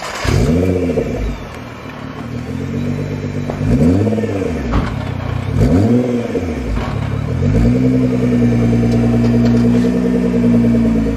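Car engine revved in three quick blips, each climbing and falling in pitch, then run up and held at steady high revs for a few seconds before fading out at the end.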